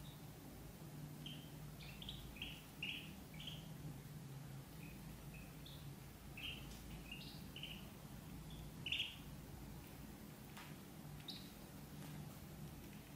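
Ducklings peeping: a string of short, high peeps in loose runs, the loudest about nine seconds in.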